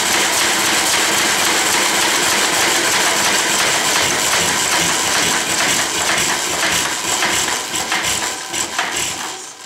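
1920s McCormick-Deering 1.5 hp Model M single-cylinder engine with its ignition switched off, clattering as its heavy flywheels coast down. The strokes slow over the last few seconds and the sound fades near the end as the engine winds to a stop.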